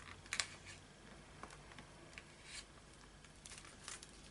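Faint rustling of paper being handled and smoothed flat by hand onto a freshly glued page, with one sharper tap about half a second in.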